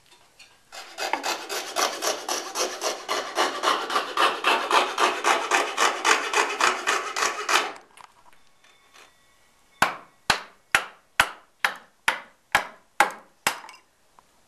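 A hand tool rasping over wood in rapid back-and-forth strokes, about five a second, for some seven seconds, shaping a wooden sword. After a pause come eight sharp knocks on wood, about two a second.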